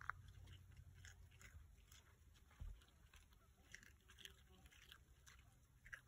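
Faint, scattered crunching and clicking of deer chewing tortillas, with a sharp click right at the start and a dull thump about two and a half seconds in.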